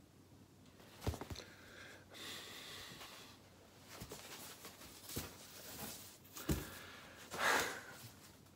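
Handling of a large piece of Belfast linen cross-stitch fabric: soft rustling and a few light knocks as it is moved and turned. Near the end comes a short breathy huff.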